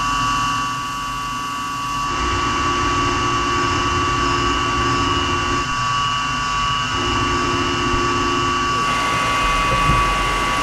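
Studer S41 CNC cylindrical grinder's wheel grinding hardened O2 tool steel under flood coolant: a steady high whine over coolant splashing, the sound shifting about two seconds in and again near the end. It is the cleanup pass that trues up the out-of-round part.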